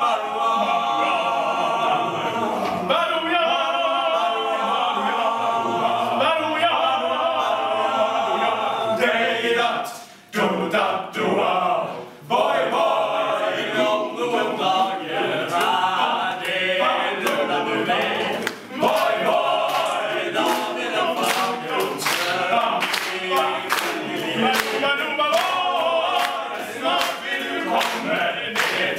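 A cappella vocal group of men and boys singing in harmony, several parts at once with no instruments. The singing drops out briefly twice, about ten and twelve seconds in.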